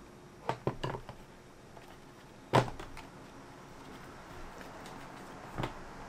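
Hard plastic clicks and knocks of an upright vacuum's parts being fitted together: a few light clicks about half a second in, a loud sharp knock about two and a half seconds in, and another knock near the end.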